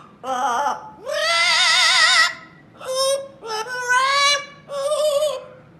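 A pet parrot singing: five warbling, high-pitched phrases with a wavering vibrato, the longest held for over a second.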